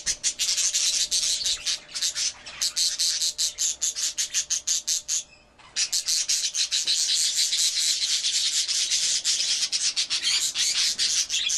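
Budgerigar chicks in a nest box making a fast, continuous raspy ticking, their begging calls. It pauses briefly about halfway, then carries on.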